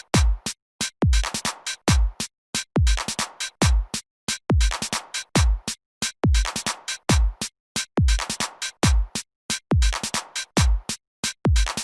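Electronic background music with a drum-machine beat: a deep kick drum that drops in pitch, about twice a second, with crisp percussion hits between.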